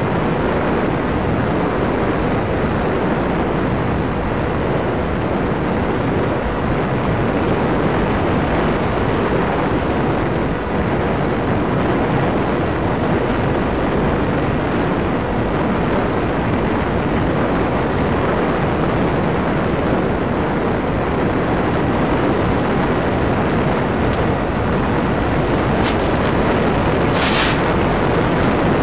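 Steady rush of wind and electric motor noise on the onboard microphone of a Black Stork FPV plane in flight. A few brief high crackles come in the last few seconds.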